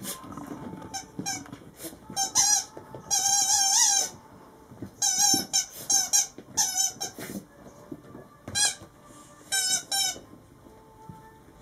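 Yellow rubber squeaky toy squeaking again and again as a small dog bites and presses it: short, wavering squeaks in irregular bursts, with one long squeak of nearly a second about three seconds in.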